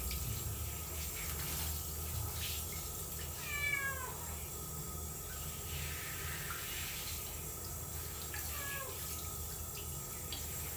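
A cat meowing twice during a bath: a falling call about a third of the way in and a shorter one near the end. These are the cries of a cat frightened of the water. Under the meows runs the steady hiss of a handheld shower.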